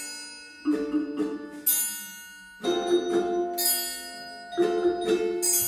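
Instrumental music played by school music students: short phrases of bright, ringing struck notes, a new phrase starting about every two seconds.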